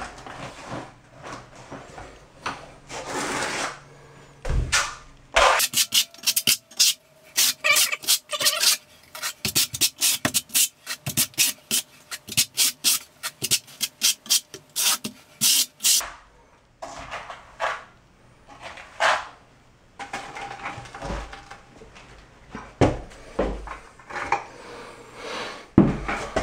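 Steel notched trowel scraping thinset mortar across the back of a marble slab in rapid repeated strokes, back-buttering it and combing ridges into the mortar. The strokes come thick and fast through the middle, with slower scrapes and knocks of the trowel before and after.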